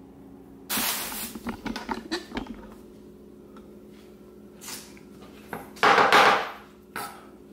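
Kitchen handling sounds: a sudden rustle with a run of light clicks and knocks about a second in, then around six seconds in a louder short scrape as a chef's knife is taken up from the plastic cutting board beside the batter bowl. A faint steady hum lies underneath.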